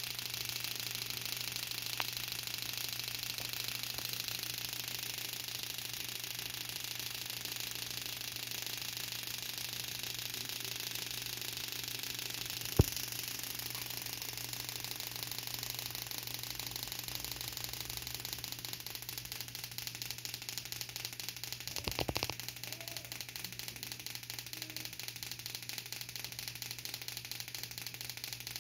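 Spark plugs snapping in rapid, even succession as a VW Gol G5/Fox ignition coil pack fires them on a test bench, with a steady low hum underneath. One sharp, louder click comes about halfway through.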